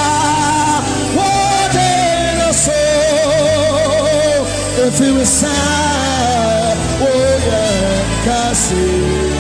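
Worship song: a solo voice sings a slow melody with wide vibrato, its held notes stepping downward, over long sustained bass notes.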